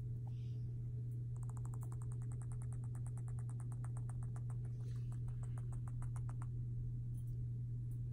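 Guinea pig making a rapid, even train of clicks, about ten a second, lasting about five seconds from a second or so in. A steady low hum runs underneath.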